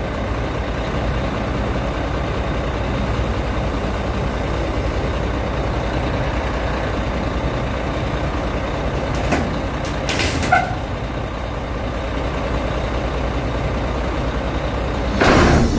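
Crawler excavator's diesel engine running steadily while the boom is lowered. There are brief bursts of noise about nine and ten seconds in, and the machine noise gets louder near the end.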